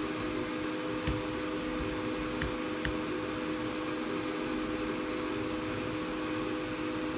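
Glowforge Pro laser cutter's fans running idle, a steady hum with two held tones. A few light clicks about one to three seconds in.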